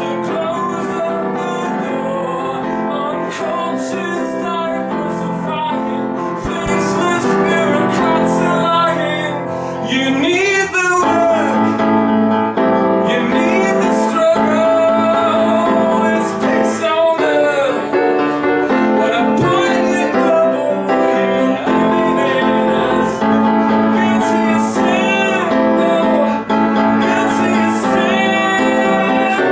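A man singing with his own piano accompaniment, a slow song with held chords; it grows louder about ten seconds in.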